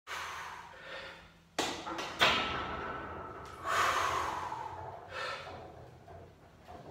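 A lifter breathing hard through a heavy barbell bench press set: a series of about five sharp breaths with sudden starts, the loudest about two seconds in.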